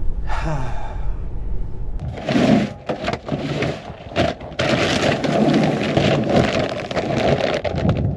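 Dense crackling, rustling noise starting about two seconds in, with two short breaks, after a brief bit of voice at the start.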